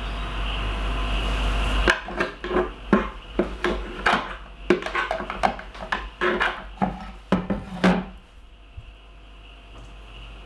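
A kitchen utensil knocking and scraping against a plastic blender jug and plastic containers as sticky fudge mixture is scraped out and spread. The knocks are irregular, about two or three a second, and stop about two seconds before the end.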